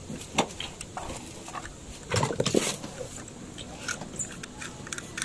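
Handling noise from a small die-cast toy truck turned over in the fingers: scattered light clicks and rubbing, with a louder rustle about two seconds in.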